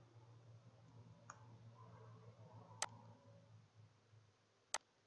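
Two sharp computer mouse clicks, about two seconds apart, over a faint low hum; otherwise near silence.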